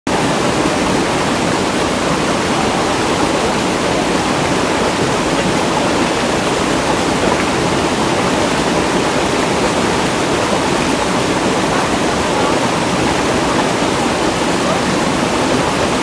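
Mountain stream rushing over rocks and small cascades: a loud, steady wash of water.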